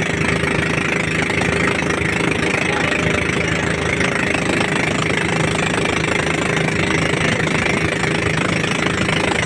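Engine of a motorized bangka (outrigger boat) running steadily while under way, with water splashing against the hull and outrigger floats.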